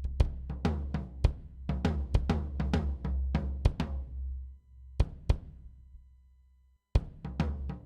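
A drum kit recording being mixed plays a beat of kick drum and snare hits over a steady low boom. About four and a half seconds in the groove stops, two single hits ring out and fade almost to silence, and the full kit comes back in near the end.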